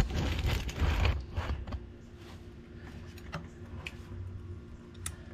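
Small wrench being worked on the bleeder screw of a scooter's front brake caliper: low handling knocks for the first second or so, then scattered light metal clicks.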